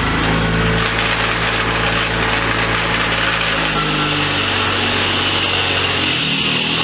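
A big power-driven wire wheel runs loud and steady, scrubbing rust and Evapo-Rust residue off vise parts. Its motor pitch shifts about halfway through.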